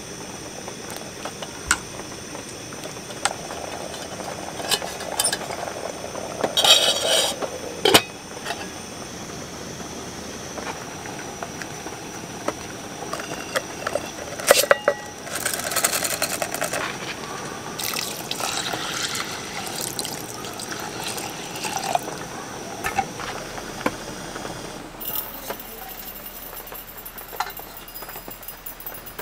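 Camp cooking: a wooden spoon stirs a thick stew in a metal pot, then water is poured from a metal cup into a cast-iron rice pot, with scattered clinks and knocks of pots and utensils.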